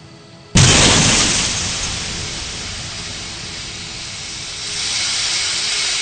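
Car crash: a sudden loud impact about half a second in, followed by a long hiss that fades and then swells again.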